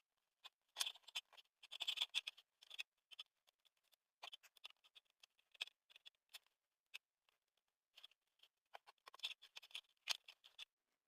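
Faint, irregular light clicks and ticks, bunched into small clusters about a second in and again near the end, with no steady tone between them.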